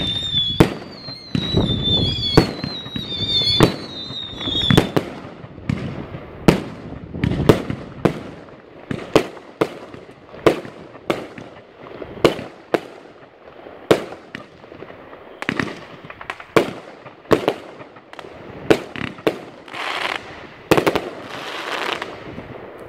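A 25-shot, 25 mm fireworks cake (Extreme Fireworks Cobra) firing: a rapid string of sharp bangs, about two a second, from shells lifting and breaking overhead. A high whistling tone sounds over the first few seconds, falling slowly in pitch. Near the end a longer rushing hiss comes in among the bangs.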